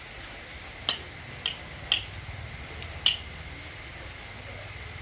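Spoons clinking against rice bowls and plates during a meal: four sharp clinks in about two seconds, the last a little apart from the others.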